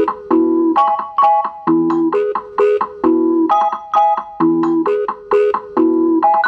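Intro music: a short, bouncy keyboard melody of plucked-sounding notes and chords repeating in a loop about every couple of seconds.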